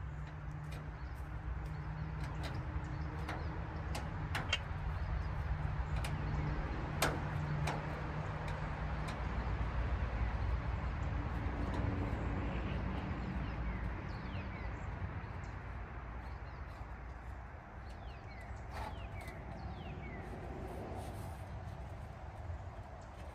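Scattered small clicks and taps of metal parts and screws being fitted by hand, over a steady low rumble that swells and fades. A few short bird chirps come in the second half.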